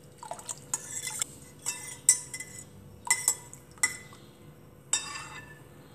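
Metal spoon stirring liquid in a glass bowl, clinking and scraping against the glass in irregular strokes as sugar is dissolved into the juice.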